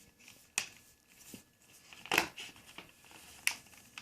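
Plastic clicks and snaps as the laptop's plastic screen bezel is pressed back on and its clips pop into place: a few sharp clicks, the loudest about two seconds in, with quieter rustling handling between them.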